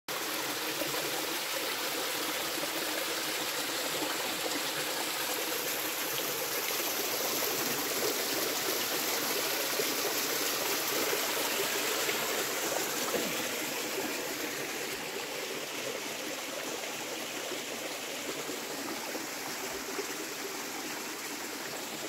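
Spring water trickling down a rock face into a stone tank and running over rocks in a shallow channel: a steady rush of flowing water, a little quieter from about two-thirds of the way through.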